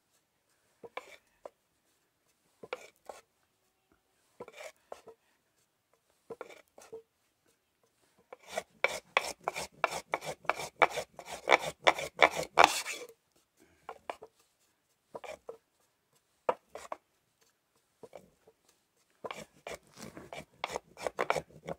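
Rudiger fire roll: a wooden block rubbed back and forth over a flat wooden board, rolling a cotton-and-wood-ash tinder roll between them to heat it by friction. The scraping strokes come slow and spaced at first, turn rapid and louder for about four seconds in the middle, slow again, then speed up near the end.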